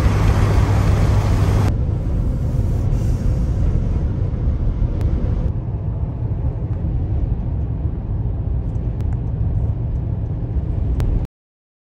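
Road and engine noise inside a moving pickup truck's cab: a steady low rumble, with more hiss in the first couple of seconds. It cuts off suddenly near the end.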